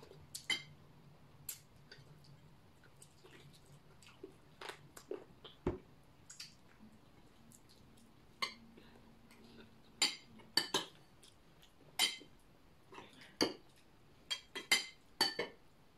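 Metal cutlery clinking against a glass serving bowl and ceramic plates during a meal, in scattered sharp taps that come more often in the last few seconds.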